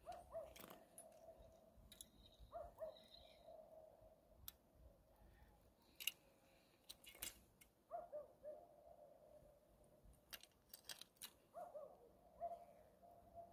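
Faint, scattered clicks and small handling noises as hands work a fishing line and hook at an ice hole. Behind them runs a faint steady hum that wavers briefly several times.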